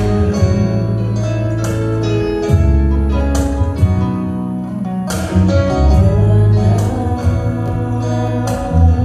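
Worship song music: a band with guitar and bass playing, with sustained sung notes between lyric lines.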